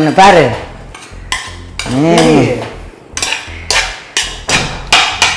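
A metal spoon stirring in a kadai, clinking and knocking against the pan in a quick run of about four knocks a second through the second half, with a brief voice sound about two seconds in.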